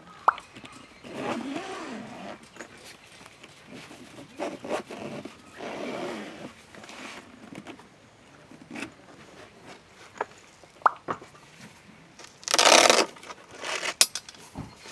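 Irregular handling noises: scrapes, a few sharp clicks and knocks, and one loud rasp lasting about half a second near the end.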